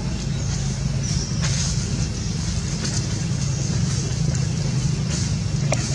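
A steady low engine-like rumble, with a few faint clicks near the end.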